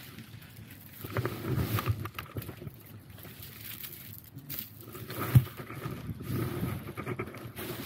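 Dry leaves rustling and crunching with handling noise as a gloved hand picks litter out of the leaf litter, in uneven bursts. A single sharp knock a little past halfway is the loudest sound.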